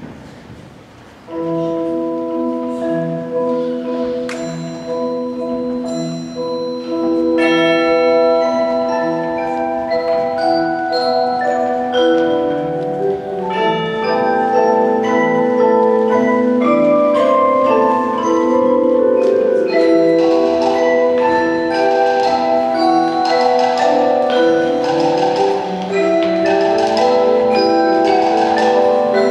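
Indoor percussion ensemble playing: long held mallet-keyboard chords enter about a second and a half in over a low note pulsing about once a second, building up layer by layer, with drum strikes growing denser and louder in the second half.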